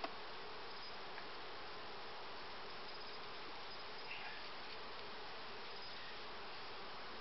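A colony of honeybees buzzing in a steady hum around an opened hive while a frame is worked over it, with one brief knock right at the start.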